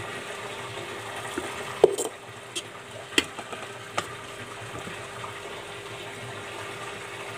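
A spoon clinking and scraping against a steel cooking pot and plate as cooked rice is served: a handful of sharp metallic clicks, clustered about two to four seconds in, over a steady hiss with a faint hum.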